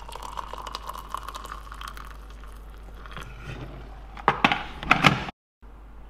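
Boiled water poured from an electric kettle into a mug holding a teabag, a steady splashing fill. About four seconds in come a few louder, sharp knocks, and the sound cuts out briefly near the end.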